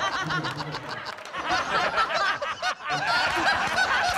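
Several people laughing at once, many voices overlapping, as an audience laughs. A deeper voice laughs in the first second.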